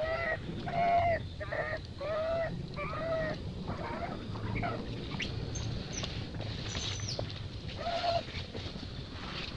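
Infant macaque crying: a quick series of short, squealing cries, about six in the first three seconds, then fewer and fainter ones, with another near the end.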